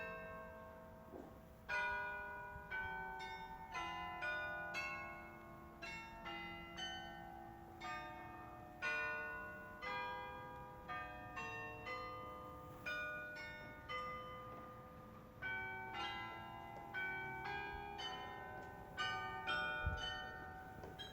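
Carillon bells playing a melody: struck notes of many different pitches, about two a second, each ringing on under the next.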